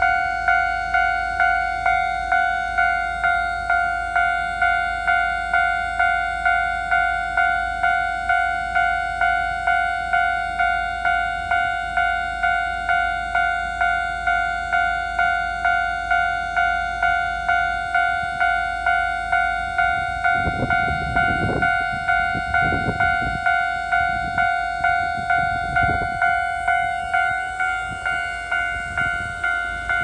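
Electronic level-crossing warning bell ringing steadily at about two dings a second. From about two-thirds of the way in, a passing Keikyu train's wheels knock over the rail joints in a few heavy clunks.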